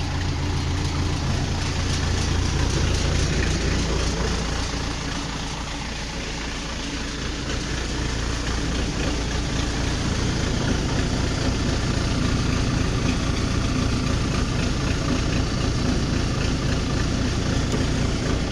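Engine of a 1977 Case 580C backhoe loader idling steadily, freshly fired up after two years of sitting; its note eases off briefly about six seconds in, then runs steady again.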